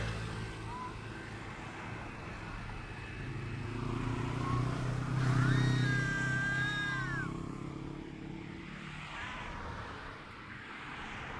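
A cat's long drawn-out courtship yowl about six seconds in, rising, held, then falling away, with a short faint cry about a second in. Under it a passing vehicle's low rumble swells to its loudest with the yowl and then fades.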